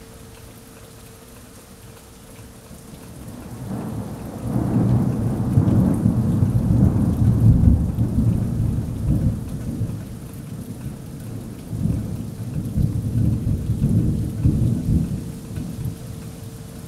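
Thunder rumbling over steady rain. A long roll builds about four seconds in and fades out, and a second, shorter roll comes a few seconds later.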